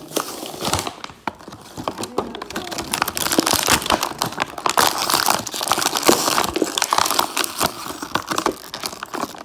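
Plastic toy packaging crinkling and crackling in the hands as it is pulled open, a dense run of quick crackles.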